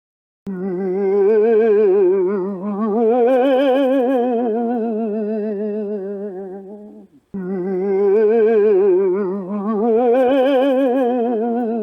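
A voice singing or humming long held notes with a strong, even vibrato, each phrase rising and then settling back down. It starts about half a second in, breaks off briefly about seven seconds in, then the same phrase starts over.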